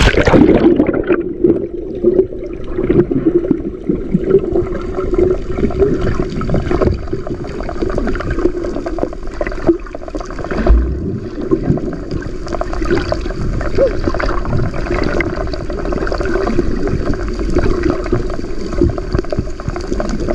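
Swimmer moving through the water: steady, muffled churning and gurgling with many small irregular clicks and splashes, and one brief low thump about halfway through.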